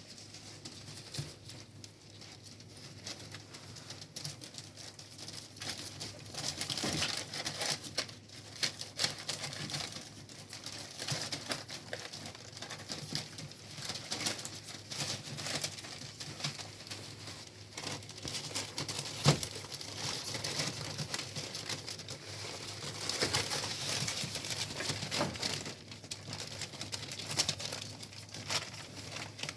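Mame shiba puppies moving about, with rustling, crinkling and many small scattered clicks.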